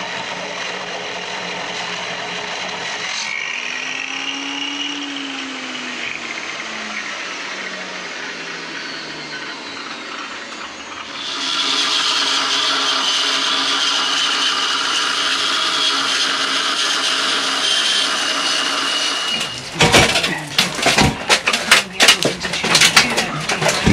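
Angle grinder cutting through a heavy, rusty steel beam with a steady high whine, which grows louder about eleven seconds in as the disc bites harder. The grinder stops about four seconds before the end, and irregular knocks and clatter follow.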